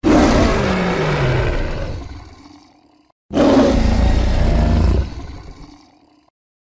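Designed roar sound effect for the dinosaur Carcharodontosaurus saharicus, heard twice. Each is a long, deep, rough roar that fades away: the first falls in pitch, and the second starts about three seconds in.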